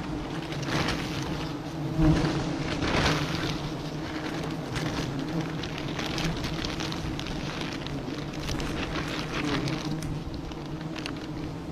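Wild honeybees buzzing in a steady low hum around their open comb, disturbed as it is cut from the tree. Scattered rustling of handling runs over the buzz.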